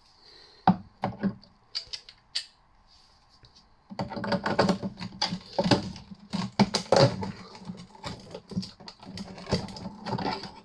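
Rapid clicking, tapping and scraping of small metal parts as a stuck magnet is pried out of a small electric motor's casing. A few separate clicks come first, then a dense, busy run of clicks and scrapes from about four seconds in.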